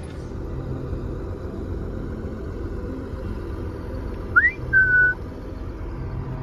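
A steady low vehicle rumble, with one short whistle about four seconds in: a quick upward slide, then a held note a little lower.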